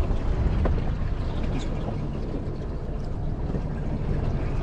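Steady low rumble of wind and water around a fishing boat on choppy water, with a few faint light clicks.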